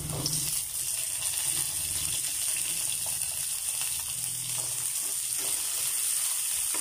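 Sliced onion and garlic sizzling in oil in a nonstick wok, with chopped tomatoes dropped in right at the start and a ladle stirring and scraping the pan a few times.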